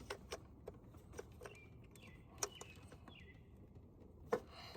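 Scattered light clicks and taps of hoses and intake parts being handled and pushed into place, the sharpest about two and a half and four and a half seconds in. A few faint bird chirps come in between about two and three and a half seconds in.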